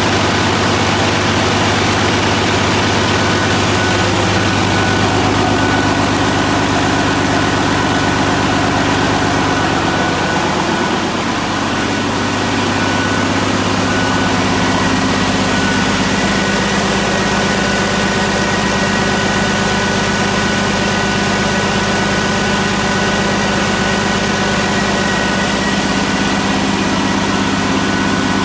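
PACCAR MX-13 inline-six turbodiesel engine idling steadily, with a steady high whine over the idle.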